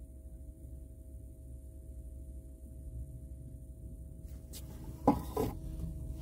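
Steady low rumble with a faint steady hum inside a car cabin. About five seconds in, one sharp knock followed by a brief rustle.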